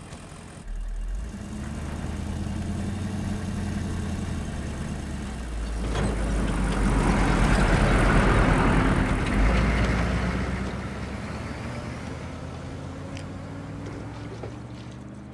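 Military Humvee diesel engines running at low speed. The sound swells with a broad rushing noise a few seconds in, then eases back to a steady low hum.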